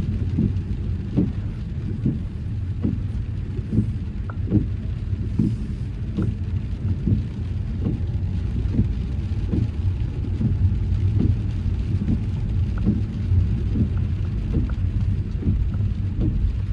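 Car driving in the rain: a steady low rumble of road and engine, with irregular taps of raindrops hitting the car, a few a second.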